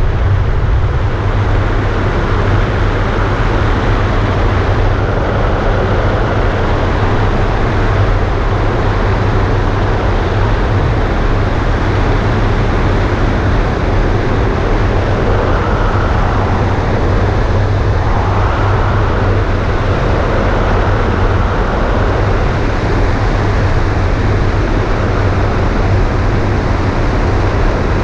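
Steady, loud wind rush over a wing-mounted camera on an ultralight trike gliding with its engine off.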